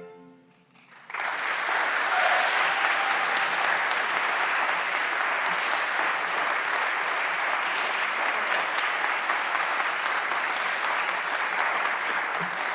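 The fading echo of a string quartet's final chord, a second of near-quiet, then audience applause that starts about a second in and goes on steadily.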